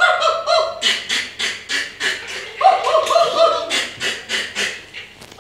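Children laughing: high-pitched voices breaking into quick pulses of laughter, in two runs.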